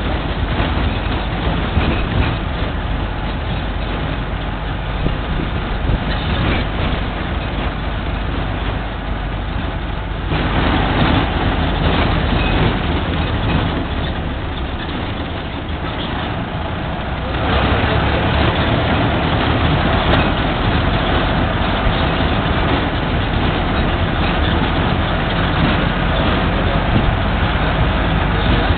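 Pickup truck driving over cobblestone streets, heard from its open bed: a steady rumble of tyres and engine mixed with wind on the microphone. The noise grows louder about ten seconds in, eases a little, then swells again past the halfway point.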